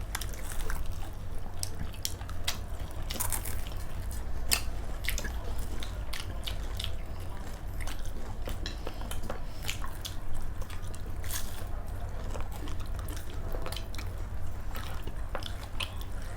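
People chewing and biting food, with irregular sharp clicks throughout, over a steady low hum.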